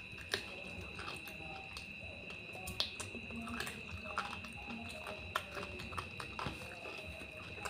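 A person chewing and smacking their lips while eating curry and fried fish by hand, with sharp wet mouth clicks every so often, the loudest about three seconds in. A steady high whine runs underneath.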